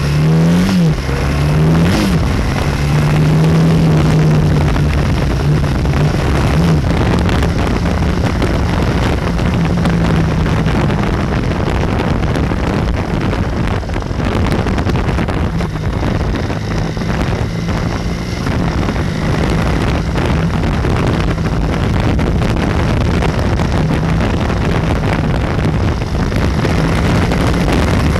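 BMW F800R's parallel-twin engine running under way. Its note climbs twice in the first couple of seconds and then holds steady at a cruise. A heavy rush of wind and road noise runs under it.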